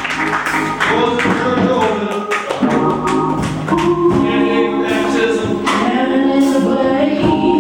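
Gospel music in church: several voices singing together over instrumental accompaniment, settling into long held chords about halfway through.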